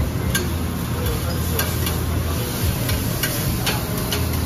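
Food sizzling on a teppanyaki steel griddle while a metal spatula scrapes and taps against the plate, making several sharp clicks over a steady low hum.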